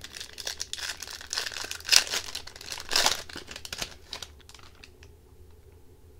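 Foil-lined Upper Deck Series 1 hockey card pack being torn open and crinkled by hand. The crackle is loudest about two and three seconds in, then dies down to a few faint rustles.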